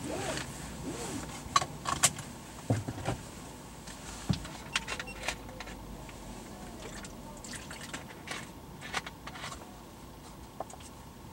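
Scattered light clicks and knocks over a low steady hum, muffled as heard from inside a parked car's cabin.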